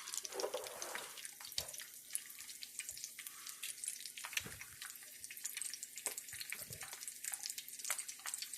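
An egg frying in oil in a pan on low heat, sizzling with many small crackles and pops.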